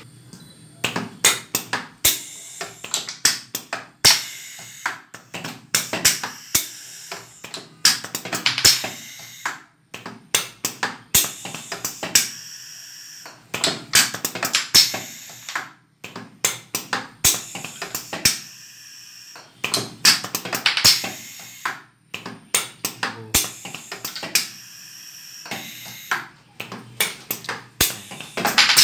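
Pneumatic cylinders and solenoid valves on a PLC-controlled servo training rig cycling through a sequence: sharp clacks and knocks as the cylinders hit their stops, with short hisses of air, in a repeating cycle of about six seconds.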